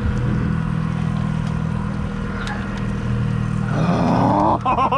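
Outboard motor running steadily, a low even engine hum. A person's voice rises over it near the end.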